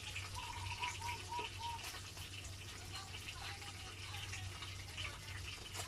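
Fish frying in hot oil: a steady sizzle with scattered crackles and pops.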